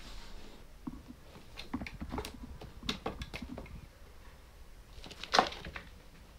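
Two cats scuffling, with quick light taps and knocks of paws and claws on a wooden stool and floor, then one louder knock a little past five seconds in.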